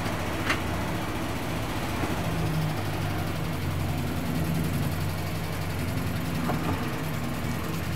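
Land Rover Series 3 Lightweight's 200Tdi diesel engine running steadily at low revs as the vehicle moves slowly, with a short click about half a second in.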